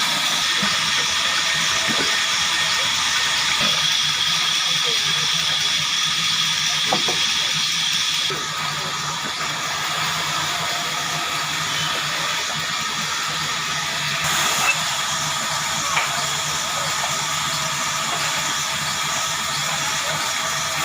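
Sawmill machinery running steadily: a continuous hiss with a constant whine in it, and a few light knocks.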